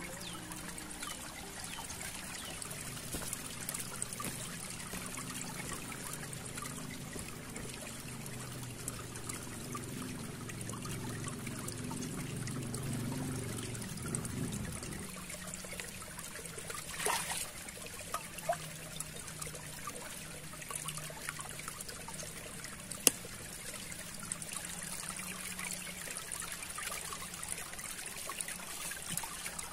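Shallow rocky stream trickling, a steady watery hiss. A few sharp clicks break in, the loudest about two-thirds of the way through.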